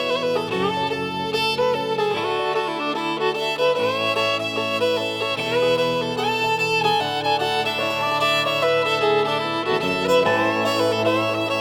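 Country music instrumental: a fiddle playing a melody with sliding notes over bass and guitar accompaniment.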